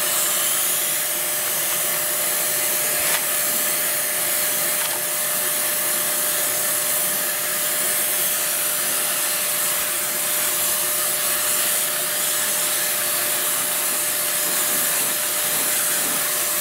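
DYC Dip Sprayer HVLP turbine system running steadily while its spray gun lays thinned Plasti Dip onto a car fender: a constant rush of air with a steady whine from the turbine.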